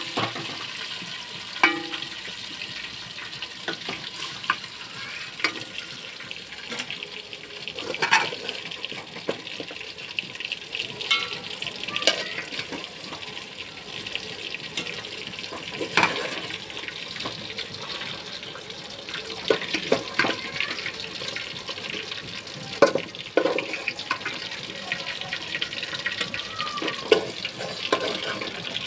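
Metal spoon scraping and knocking against an aluminium cooking pot and a steel serving bowl as fried chicken pieces are served out. The scattered clinks and knocks come over a steady hiss.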